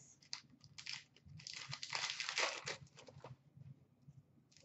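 Hockey trading cards handled and shuffled through by hand: soft clicks and light rustling of cards sliding against one another, thickest about a second and a half in and easing off after about three seconds.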